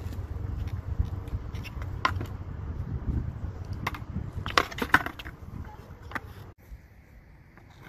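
Skateboard clacking on concrete during a no comply 180 attempt: one sharp clack about two seconds in, then a quick cluster of clacks near five seconds in as the board is popped and lands, over a low steady rumble.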